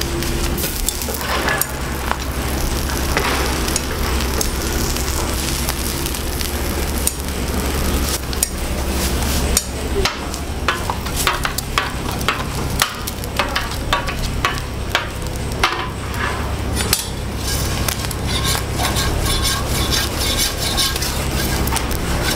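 Eggs sizzling as they fry on a flat-top griddle, with a metal scraper clicking and scraping against the steel plate, more often in the second half. A steady low hum runs underneath.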